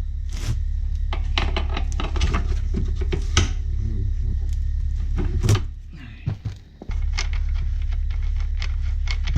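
Workshop handling noise: scattered metal clicks and knocks of hand tools and parts as a wheel is fitted to a dirt bike, over a steady low hum that drops out for about a second just after the middle.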